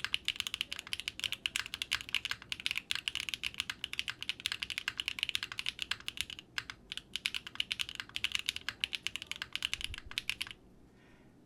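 Fast typing on a Quantum60 custom 60% mechanical keyboard with SWK Cat Mint switches on a PP plate and a 50A O-ring mount: a dense, even run of keystroke clacks that stops about a second before the end.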